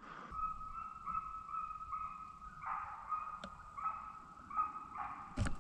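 A pack of hunting hounds baying in chase at a distance, their voices overlapping into a steady, wavering chorus that swells and falls every second or so. A sharp knock comes near the end.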